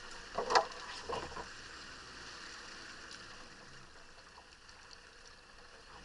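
Off-road vehicle driving through a shallow stream, its wheels splashing, with two sharp splashes about half a second and a second in. After that comes a steady low rush as it climbs out onto dry ground.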